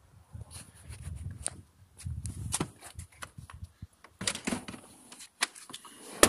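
Citroën C4 Grand Picasso rear seat being worked by hand: low knocks of handling and scattered plastic clicks as the release lever under the seat is pulled, then one sharp latch click near the end as the seat lets go.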